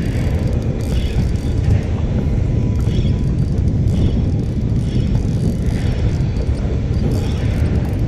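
Steady, loud, low rumble of wind buffeting the microphone on open water.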